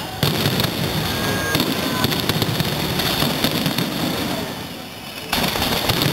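Fireworks display: aerial shells bursting with dense, continuous crackling, and sudden loud bangs about a quarter second in and again near the end.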